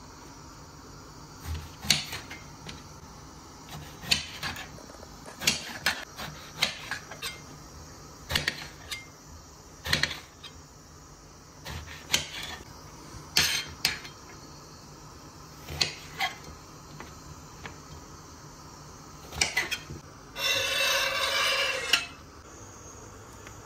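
Kitchen knife slicing an eggplant into rounds on a glass cutting board: irregular sharp taps of the blade striking the glass, often in pairs. Near the end, a steady scrape of about a second and a half as the knife sweeps the slices off the glass board into a steel bowl.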